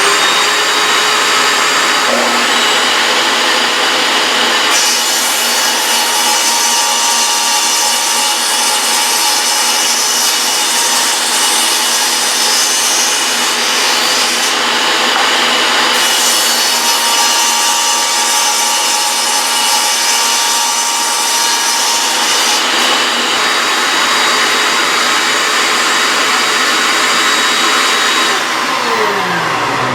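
Table saw cutting wood while a wet/dry shop vac pulls dust through a homemade bucket cyclone. The cutting sound is strongest in two long passes. Near the end the saw's whine falls in pitch as it winds down.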